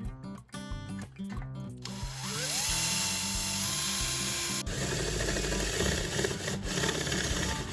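Electric drill with a sharpened twist bit starting up, its whine rising in pitch and then holding steady. A few seconds later the sound turns coarser and grittier as the bit bites into material.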